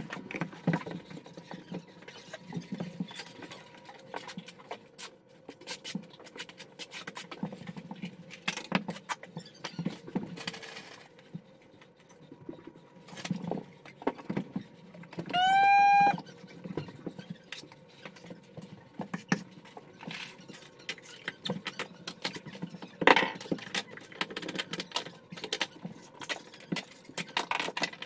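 Rapid, scattered clicks, taps and knocks of tile-setting work: tiles, leveling clips and tools being handled and tapped, with one sharp knock later on. About halfway through, a Grabo vacuum tile lifter's electric pump whines for about a second, gliding up and then holding steady.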